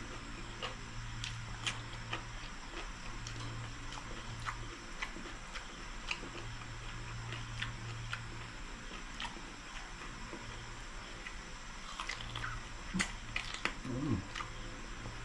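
Close-up eating sounds of crispy pata (deep-fried pork knuckle) being chewed: wet chewing and lip smacks with many small scattered clicks. A denser run of louder smacks comes near the end, with a short hummed 'mm' as the meat is torn apart by hand.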